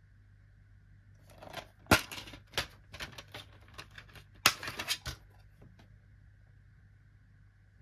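Plastic DVD case being opened and the disc pressed off its centre hub: a run of sharp plastic clicks and snaps, the two loudest about two seconds in and about four and a half seconds in.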